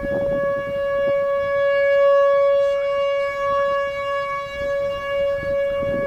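Outdoor civil-defense warning siren sounding for a tornado warning. It holds one steady pitch with strong overtones, and its loudness swells and eases slightly.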